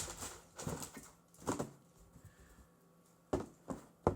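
Sneaker box and its packing being handled: a few short rustles and light knocks, spaced unevenly.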